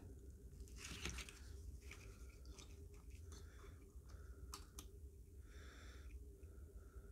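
Faint crackling and scattered small ticks as a soldering iron melts the solder joints on a lithium-ion tool battery's circuit board, with a brief hiss of flux around two thirds of the way in, over a steady low hum.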